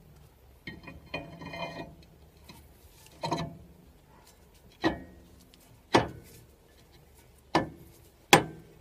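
A new brake disc being fitted onto a car's front hub: a ringing metal scrape about a second in, then a duller knock and four sharp metal clanks with a short ring as the disc knocks against the hub and wheel studs.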